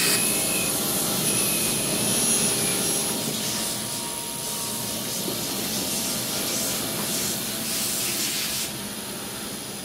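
Steady hissing background noise with a few faint steady tones and some faint scratchy rubbing sounds in the middle, slowly growing quieter.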